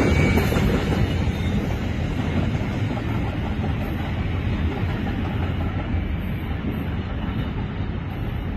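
Freight train cars rolling on the rails and pulling away, a steady rumble that slowly fades as the end of the train recedes.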